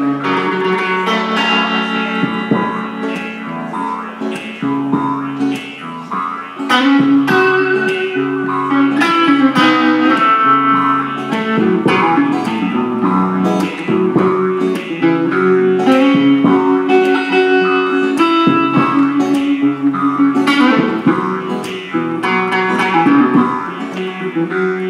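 Live band playing an instrumental passage with several plucked guitars over an upright double bass walking the low line.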